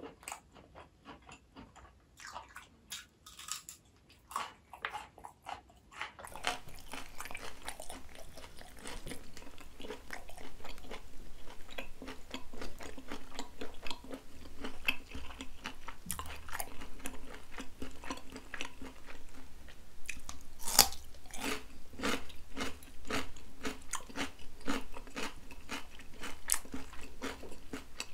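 Close-miked biting and chewing of raw cucumber: soft mouth clicks at first, then from about six seconds in a steady run of crisp, wet crunches, the sharpest about three quarters of the way through.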